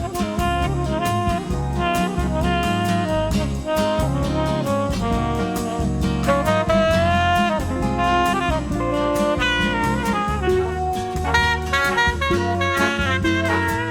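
Mellow instrumental background music of the Muzak kind, with a saxophone and brass melody over bass and a drum kit keeping a steady beat.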